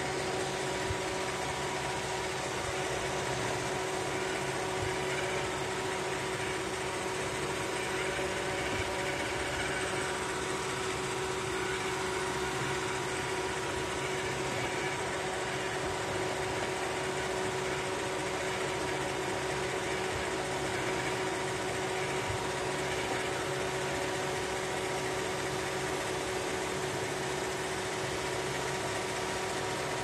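iRobot Roomba 618 robot vacuum running, a steady motor hum of its vacuum fan and brushes with a few constant tones, heard from on board the robot.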